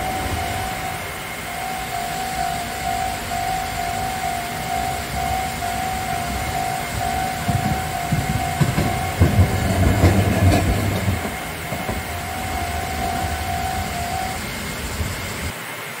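Railway level-crossing warning bell ringing steadily in alternating high and low tones, breaking off about nine seconds in and starting again until shortly before the end. About nine to eleven seconds in, a train or tram passes over the rails with a low rumble.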